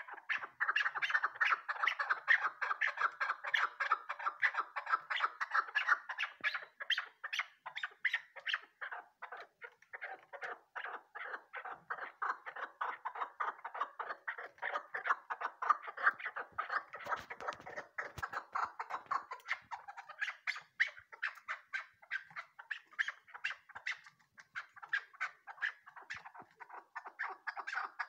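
Chukar partridge calling: a fast, unbroken run of short clucking chuck notes, several a second, easing off somewhat in the middle and picking up again near the end.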